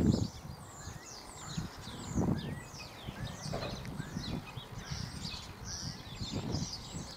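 Small birds chirping, many quick short notes sliding down in pitch, over a faint low rumble.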